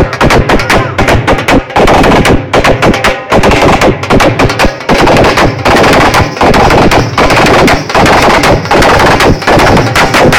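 Dhol drum beaten hard and fast close to the microphone, a dense run of strokes that overloads the recording into a distorted rattle.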